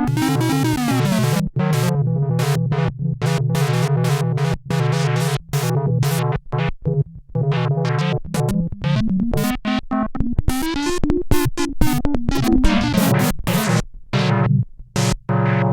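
Sequential Prophet-6 analog polyphonic synthesizer played dry, without effects: a sustained low bass part under short, choppy chords, settling into a long held chord near the end.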